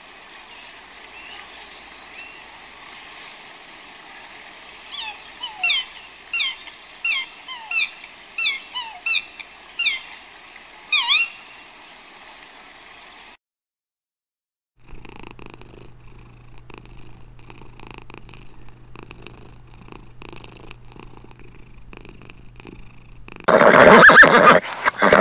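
Mute swan cygnets peeping: a run of about nine short, high, falling calls over a soft steady hiss. After a break comes a low steady hum with faint crackling, then near the end a loud burst of noise as a horse rolls on its back in the dirt.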